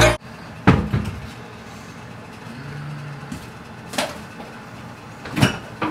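Three short, sharp knocks, about a second in, about four seconds in and near the end, over faint background noise.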